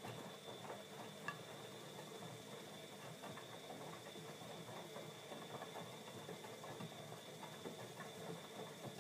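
Bosch Maxx 40 WFC2445 washing machine running: faint, irregular patter and splashing of water and laundry in the drum, over a steady faint high-pitched tone.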